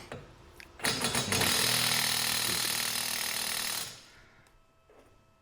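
Impact wrench hammering for about three seconds as it tightens the front hub nut, then stopping.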